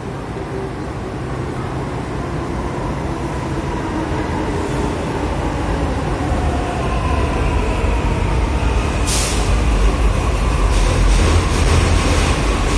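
Delhi Metro train moving alongside the platform, its rumble and wheel noise growing louder, with a steady motor whine from about six seconds in. A short sharp hiss comes about nine seconds in, followed by repeated ticks near the end.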